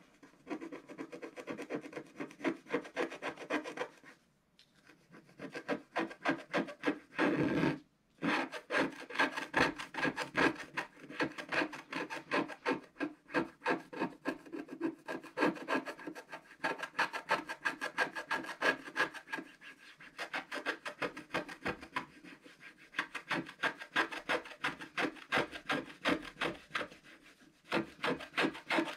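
Wooden stylus scratching the black coating off a scratch-art card in quick, closely spaced strokes. There is a short pause about four seconds in, and one longer, louder scrape just before eight seconds.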